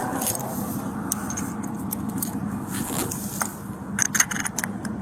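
Clothing rustling and scraping with scattered small metallic clicks, and a quick run of clicks and jingles about four seconds in, like keys or metal gear being handled, over a steady vehicle idle.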